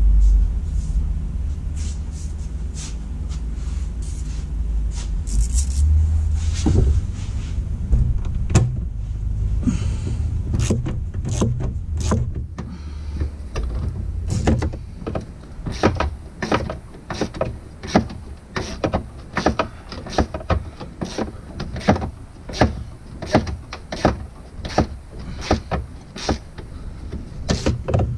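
Hand socket ratchet clicking as a bolt is turned, settling into a steady rhythm of about two strokes a second in the second half, after some low handling thumps and knocks.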